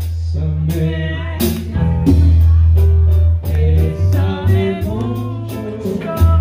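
Music: a song with a singer over guitar, a steady bass and a regular beat.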